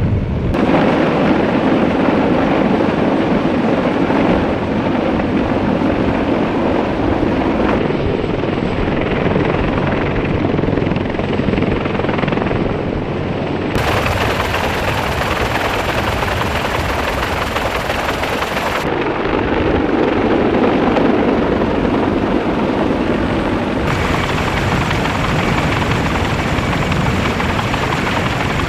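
CH-53E Super Stallion heavy-lift helicopter running, a loud, steady din of rotor and turbine noise. The sound changes abruptly about five times, at cuts between shots.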